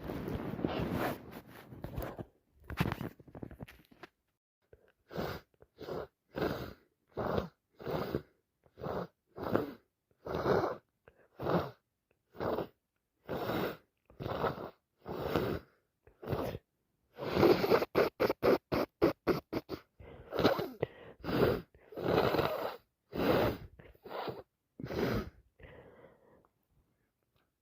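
A person with a heavy head cold sniffling over and over in short, separate bursts, with a quicker run of sniffs about two-thirds of the way through.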